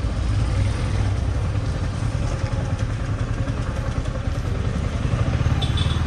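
Yamaha R15 V4's single-cylinder engine running at low revs as the motorcycle rolls slowly, a steady low engine note.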